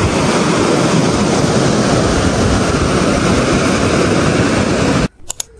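Sea surf washing and breaking on rocks and sand, a steady rushing noise that cuts off suddenly near the end.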